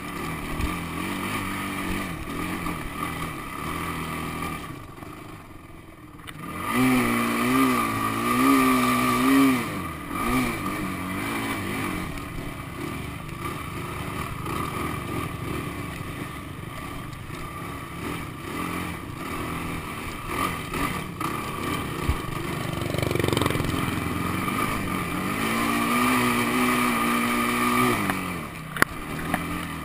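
Honda sport quad's engine running under throttle through soft sand, its pitch rising and falling as the rider works the throttle. It eases off briefly about five seconds in, and there is a single sharp knock near the end.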